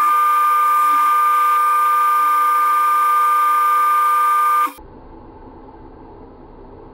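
Benchtop belt sander running with a steady high whine, which cuts off suddenly about two-thirds of the way through, leaving faint room noise.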